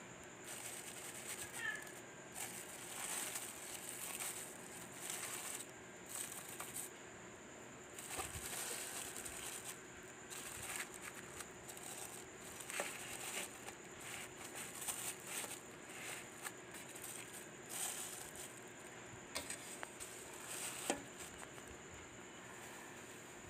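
Plastic wrap crinkling and metal llaneras (flan molds) knocking against a perforated metal steamer tray as they are handled and set in place, in irregular short bursts with a sharper knock near the end.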